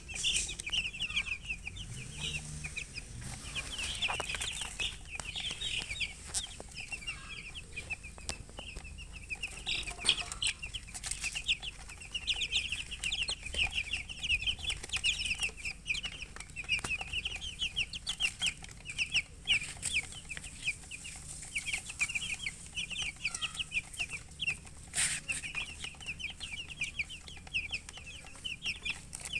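Baby chicks chirping continuously, many rapid high peeps overlapping, with a few sharp clicks or taps.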